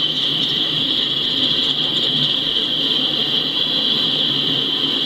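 Empty coal hopper cars rolling past at steady speed: a continuous rumble and rattle of freight-car wheels on the rails, with a steady high-pitched hiss above it.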